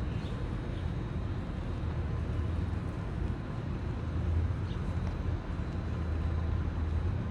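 A steady low motor rumble, a little louder about halfway through and again near the end.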